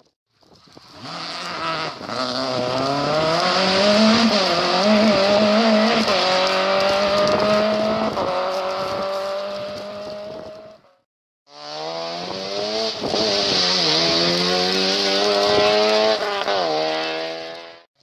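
Two rally cars, one after the other, come on at full throttle, each engine note climbing with small dips at the gear changes. Each sound cuts off suddenly, the first about eleven seconds in and the second near the end.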